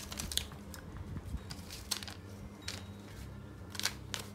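Folded paper slips being handled in a plastic mesh cup and one being unfolded: scattered light paper rustles and a few sharp clicks over a low steady hum.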